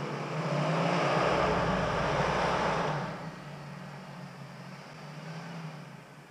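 Jeep Grand Cherokee engine revved hard for about two and a half seconds as the SUV tries to climb a snowy slope, then easing back to a lower, steady run. The front axle is not engaging, so it is pushing on the rear wheels alone.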